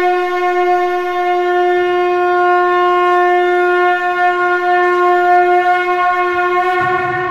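A shankh (conch shell trumpet) blown in one long, steady note, with a brief waver near the end.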